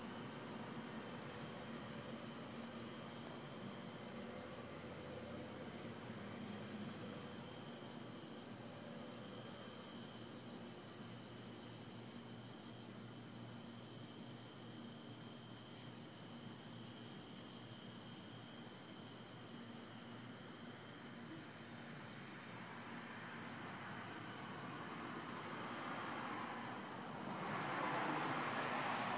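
Steady chorus of night insects such as crickets, a high pulsing trill with a fainter lower drone beneath it. Near the end a broad rushing sound swells up over it.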